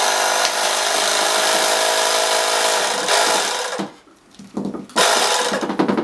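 A small electric motor running loudly and steadily for about four seconds, stopping, then running again for about a second near the end.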